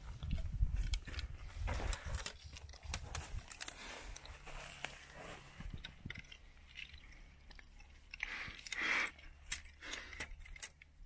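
Strip of plastic cordage cut from a PET bottle crinkling and scraping against pine bark as it is wrapped around a tree trunk, a scatter of small clicks and rustles.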